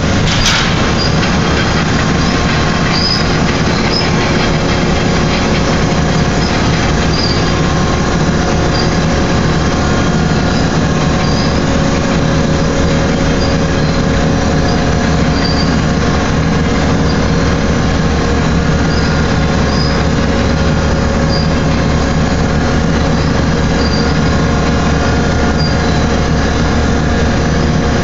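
Large hydraulic dumper platform tilting up, its hydraulic cylinders extending: a loud, steady machinery hum with short high metallic squeaks coming and going. There is a brief sharp noise about half a second in.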